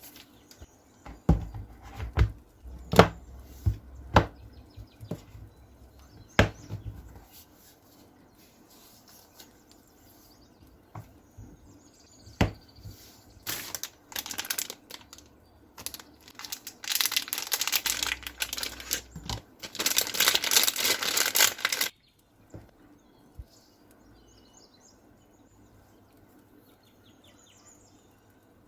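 Packaging being handled: a few sharp taps and knocks, then a long stretch of plastic wrapping crinkling and tearing that stops abruptly.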